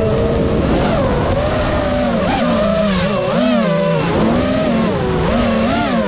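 FPV racing quadcopter's motors and propellers running, a buzzing whine whose pitch keeps rising and falling with the throttle.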